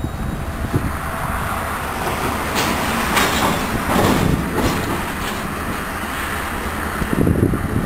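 Freight train rolling through a rail yard: a steady rumble of steel wheels on the rails, with a run of clacks in the middle as wheels pass over rail joints.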